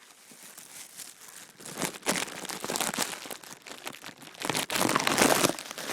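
Rustling, crinkling noise made of many small crackles, building about a second and a half in and loudest about four and a half to five and a half seconds in.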